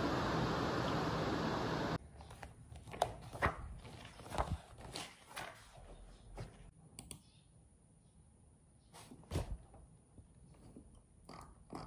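A steady hiss that cuts off about two seconds in, then the pages of a thick paperback textbook being leafed through and flipped: a run of quick paper flicks and rustles. A single low thump comes about nine seconds in.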